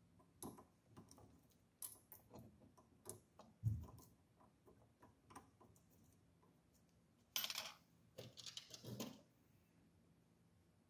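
Faint small clicks and taps of hard plastic and metal printer parts being handled as the hot end assembly is fitted back onto the carriage, with a single low knock about three and a half seconds in and two short bursts of rattling clicks between about seven and nine seconds in.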